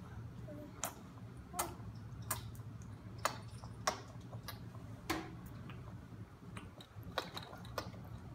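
Irregular small clicks and smacks of a baby eating spaghetti with her hands, about one every half second to second, over a low steady hum.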